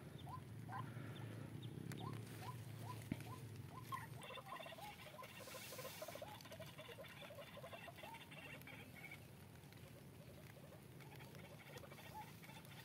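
Short, squeaky rising bird chirps repeat about twice a second. From about four seconds in they give way to a denser run of chattering calls that fades after about nine seconds.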